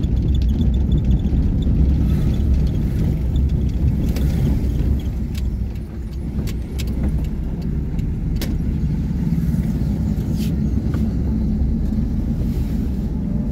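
Car engine and tyre noise heard from inside the cabin while driving slowly, a steady low rumble with a few faint clicks.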